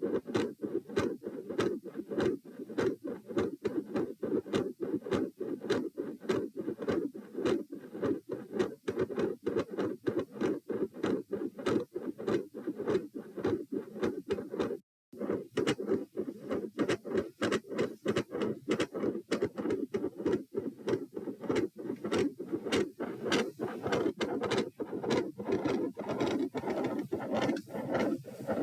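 Handheld Doppler probe on the chest picking up the heart's blood flow as a fast, steady run of rhythmic whooshing pulses; the uploader takes these heart sounds for multiple murmurs. The sound drops out for a moment about halfway through, then resumes.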